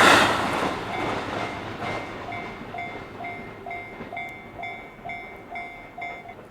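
A JR Ryomo Line train's rumble fades as it clears the level crossing, while the crossing's warning bell rings about twice a second. The bell stops near the end, once the train has cleared.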